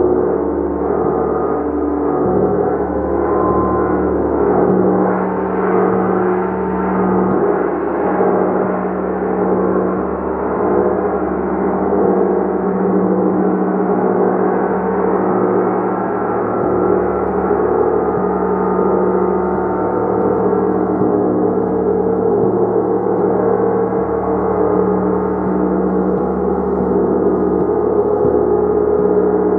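A gong played continuously, building a dense, sustained wash of many ringing overtones over a deep steady hum, swelling and easing gently without a break.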